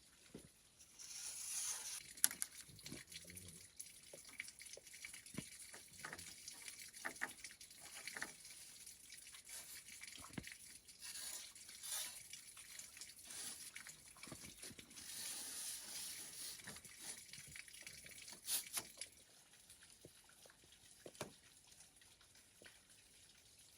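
Water running and splashing, as from a tap into a sink, with small knocks and clicks mixed in. The water stops about nineteen seconds in, leaving a few scattered clicks.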